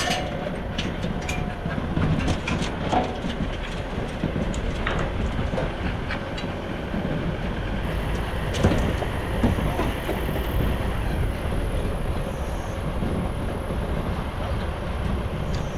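Ute driving along a rough bush track: a steady low rumble with scattered rattles and knocks from the body and tray.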